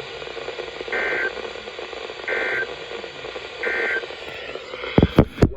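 Three short bursts of Emergency Alert System end-of-message data tones, a warbling digital chirp repeated about a second and a half apart, over steady radio hiss. Near the end a few sharp clicks break in and the hiss drops away.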